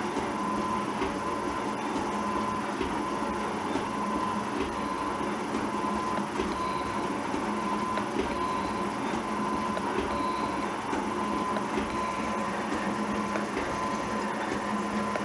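G&E metal shaper running, its ram stroking back and forth as the tool takes a cleanup pass on a block of high-speed steel. It is a steady mechanical running noise with a constant whine.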